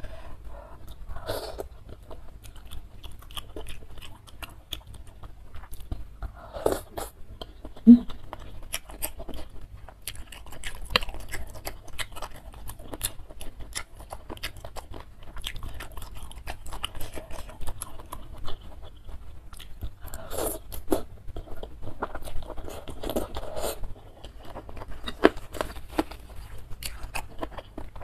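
Close-miked chewing and biting with wet mouth clicks as a person eats boneless chicken feet and spicy instant noodles. Several longer, louder mouthfuls stand out.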